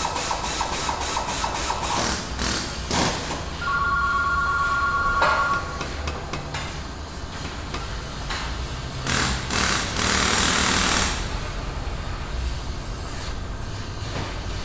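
Auto repair shop ambience: rapid, even clicking of tools in the first couple of seconds, a telephone ringing once about four seconds in, and a burst of hissing around nine to eleven seconds, over a low workshop hum.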